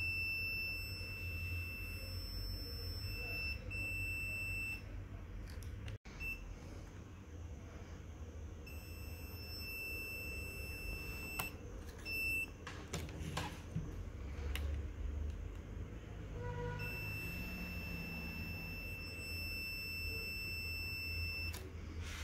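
A high, steady electronic beep, held for several seconds at a time and sounding three times with gaps between, over a low steady hum.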